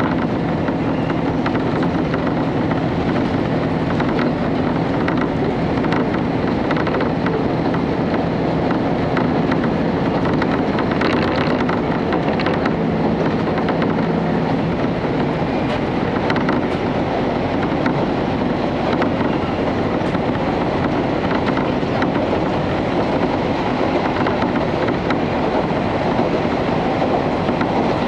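Running noise of a KiHa 31 diesel railcar heard from inside the passenger cabin: a steady hum of engine and wheels on rail, with scattered light clicks. A steady low engine note in the hum fades out a little past halfway through.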